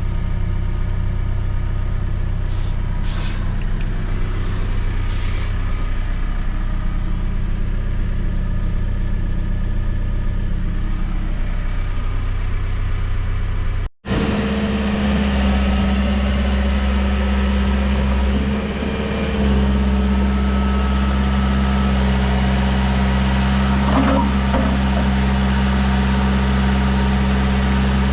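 Case 580 Super M loader backhoe's diesel engine running steadily. After a sudden break about halfway through, it runs on at a higher engine speed.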